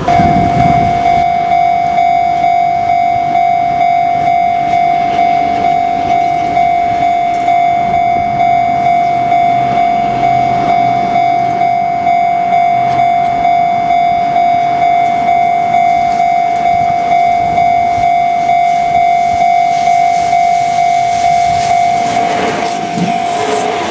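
Japanese railway level crossing's electronic warning bell ringing at a steady pace of about 100 strikes a minute, one even high tone per strike, signalling an approaching train. It starts suddenly and keeps going without a break.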